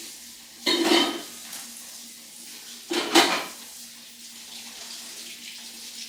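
Two loud clatters of kitchenware, one about a second in and another about three seconds in, over a faint steady hum.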